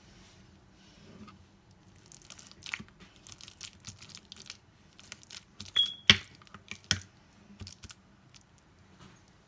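Metal potato masher pressing down into guacamole in a ceramic bowl: an irregular run of soft clicks and knocks as the masher grid squashes the avocado and strikes the bowl, with one sharp ringing clink a little past the middle.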